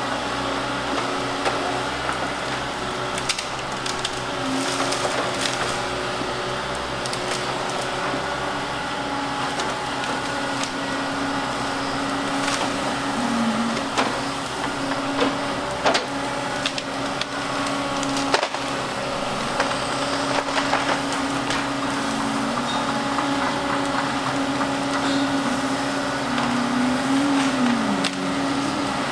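Volvo crawler excavator's diesel engine running steadily under hydraulic load, its pitch dipping now and then and sagging near the end, over frequent sharp cracks and knocks as the bucket works stone and ground.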